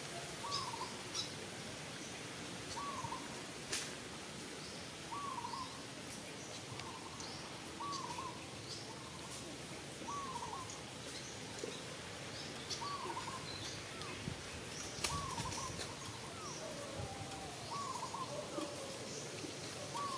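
Forest birds calling: one bird repeats a short, hooked call every one to two seconds, with higher chirps from other birds above it. A few sharp clicks stand out, one about four seconds in and a cluster around fifteen seconds.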